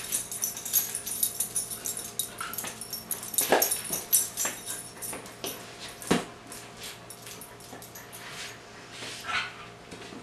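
Dog whimpering and yipping while moving about, with scattered sharp clicks and knocks.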